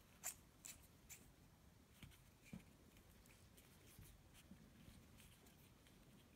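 Faint clicking of a cap being screwed by hand onto the threaded metal body of an airgun regulator: a few evenly spaced ticks about every half second that stop about a second in, then only a few scattered faint ticks.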